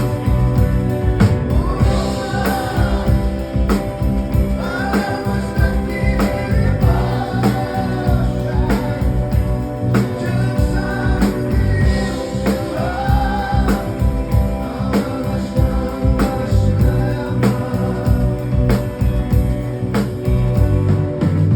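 Live rock band playing an instrumental passage of a song, with a steady drum beat under sustained guitar and keyboard tones and a melodic line that swells and falls every couple of seconds.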